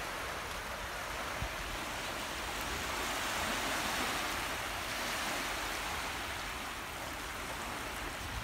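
Small waves breaking and washing up on a sandy beach: a steady surf hiss that swells slightly in the middle.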